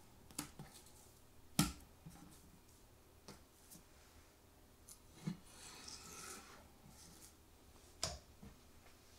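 Sparse small clicks and knocks from tools working on a striped beakfish fillet as the pin bones are taken out, the loudest about one and a half seconds in, with a short scrape about six seconds in.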